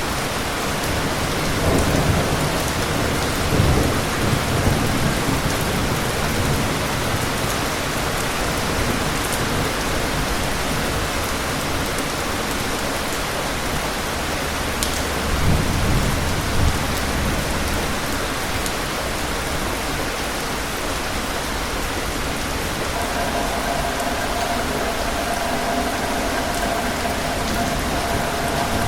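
Steady rainfall with distant thunder: a low rumble swells about two seconds in and again about halfway through.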